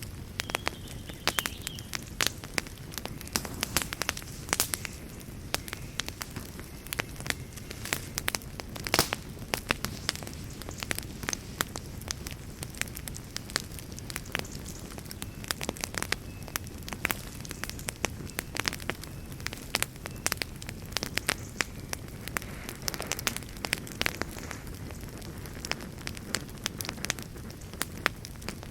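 Wood fire burning in a fireplace: frequent irregular sharp crackles and pops over a steady low rush of flame.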